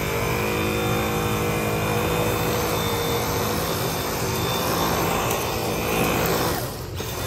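Dyson V8 Absolute cordless stick vacuum running with its motorised carpet head pushed over carpet: a steady motor whine over a rushing noise, dipping briefly near the end.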